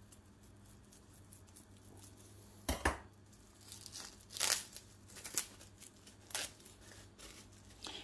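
Thin plastic wrapping being slit and torn open, then crinkled as it is peeled off a block of puff pastry: several short tearing and crackling sounds, the loudest about three seconds in and again around four and a half seconds in.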